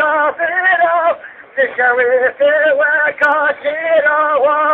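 A man singing a Turkish kaside, a devotional hymn, in long, ornamented phrases with a strong wavering vibrato, pausing briefly for breath between them.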